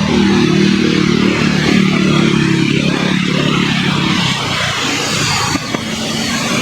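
Jet airliner engines running, a loud steady rush with a low droning hum beneath it that weakens a little past the middle.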